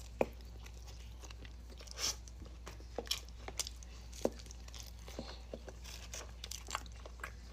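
Close-miked eating: crunchy bites into garlic bread topped with chicken and shrimp Alfredo, then chewing, with sharp crunches every second or so over a steady low hum.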